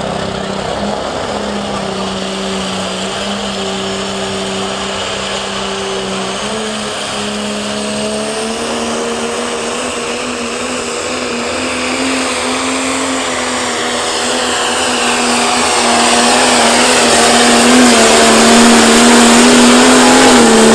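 Pro Stock pulling tractor's turbocharged diesel engine running flat out under load during a pull. Its pitch climbs in steps, and it grows louder over the second half, loudest near the end as the tractor passes close.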